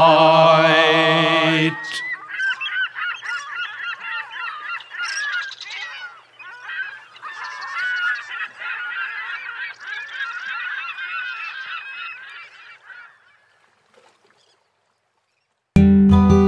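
A flock of geese calling, many honks overlapping in a continuous chatter that fades out after about eleven seconds. Before it, the held last sung note of a folk song ends about two seconds in, and near the end acoustic guitar music starts.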